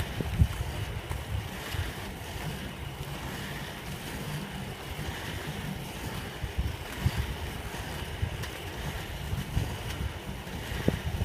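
Wind buffeting the microphone of a camera moving along at skating pace: an uneven low rumble that comes and goes, with a steady hiss above it.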